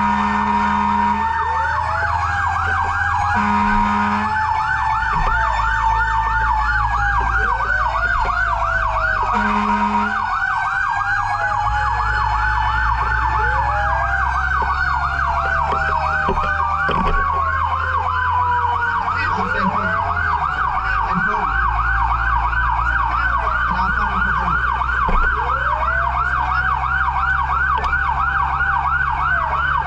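Fire engine sirens on an emergency run: a fast yelp repeating several times a second, with slower wailing sweeps rising and falling beneath it, over a steady low engine rumble. A low horn sounds in three short blasts in the first ten seconds.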